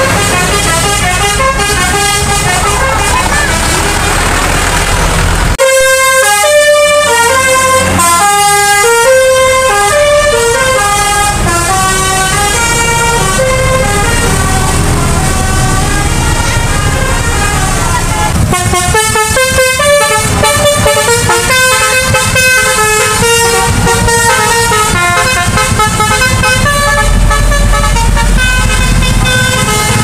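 Road traffic and engine noise, then from about five seconds in a multi-tone telolet (basuri) bus horn plays a tune of short stepped notes, going on and off for the rest of the time over the traffic.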